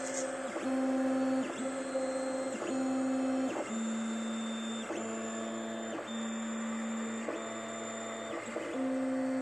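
SUNLU S8 3D printer running a print: its stepper motors whine in steady tones that jump to a new pitch about once a second as the print head changes direction.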